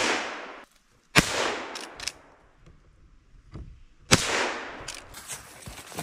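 Two rifle shots from a Henry lever-action rifle, each a sharp crack with about a second of echo through the trees, about three seconds apart. The echo of an earlier shot is still fading as the sound begins.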